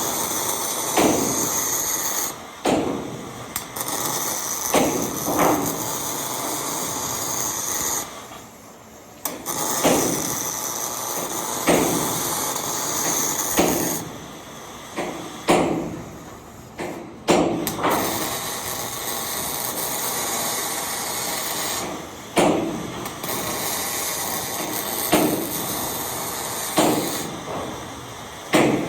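MIG welding arc crackling in spells of several seconds, broken by short pauses, with a sharp knock every second or two.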